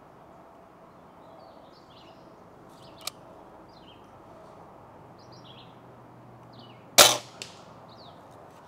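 Daisy Powerline 1101S air rifle firing a single shot, a sharp crack about seven seconds in, followed half a second later by a faint click. Birds chirp throughout.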